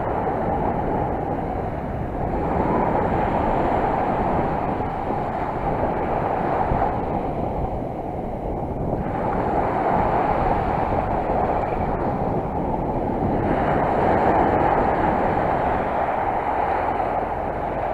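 Sea surf washing in, swelling and easing every few seconds, with wind rumbling on the microphone.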